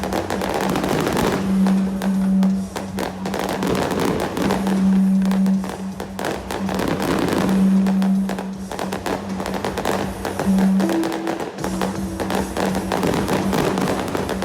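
Fireworks bursting and crackling in quick succession, with loud music playing alongside, a low note held for a second or two at a time and repeating.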